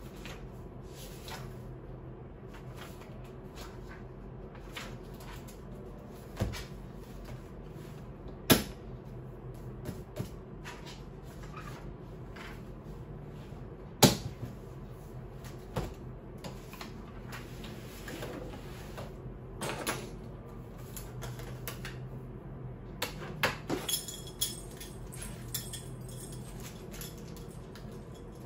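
Scattered sharp knocks and clicks of things being handled and set down on a desk, the loudest about 8.5 and 14 seconds in and a quick cluster near the end, over a steady low hum.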